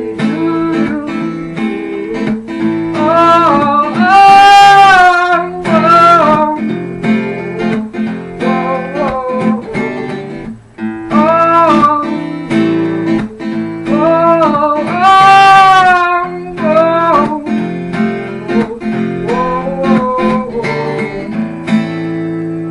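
Acoustic guitar strummed in a steady rhythm under singing, with long held notes; near the end the singing stops and the guitar chord rings on.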